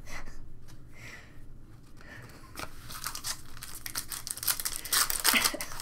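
2020 Topps Stadium Club baseball cards being flipped through by hand, card sliding off card in papery rustles and flicks that get busier about halfway through.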